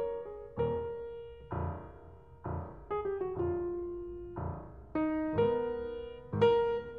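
Solo prepared grand piano playing gospel-tinged jazz: chords struck every second or so, each left to ring out and fade before the next.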